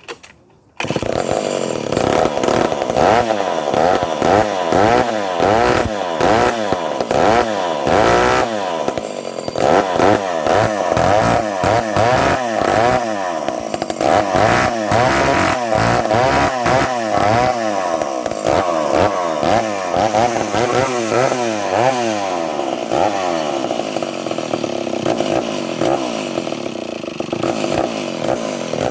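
Vintage Lancaster 40-IL direct-drive two-stroke chainsaw cold starting on a single pull of the starter cord. It catches just under a second in and runs loudly, its engine speed rising and falling over and over. It runs rich, which the owner puts down to a tiny leak past the carburettor's inlet needle seat.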